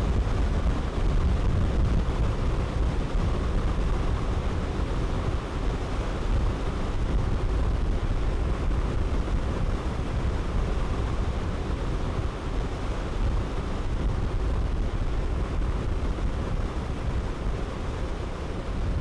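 Fishing boat under way at speed: a steady engine and water rush with heavy wind rumble on the microphone.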